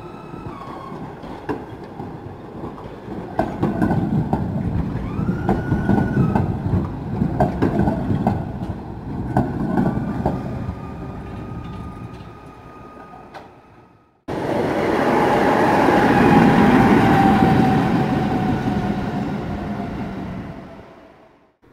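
Tatra KT8D5 articulated tram rolling through a curved junction: wheels clacking over the rail crossings and points, with held high squeals from the wheels on the curve. After a sudden cut about 14 seconds in, a louder vehicle passes close with a slowly falling tone, fading out near the end.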